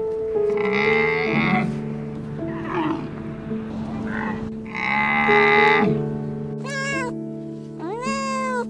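A Scottish Fold cat meowing twice near the end: a short meow, then a longer one that rises and falls, over background music. Earlier, two harsh calls about a second long come from the dromedary camel.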